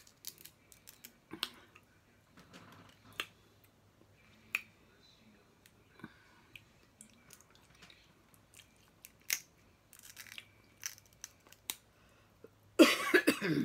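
Snow crab leg shells cracking and snapping, heard as scattered sharp clicks, mixed with close-up chewing. A louder, longer crackle comes near the end.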